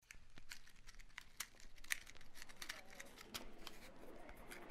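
Soft scattered clicks and rustles of a cardboard matchbox being handled as a match is taken out, before the strike.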